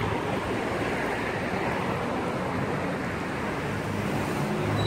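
Steady hiss of road traffic on a city street, with an engine hum growing louder near the end as a vehicle comes closer.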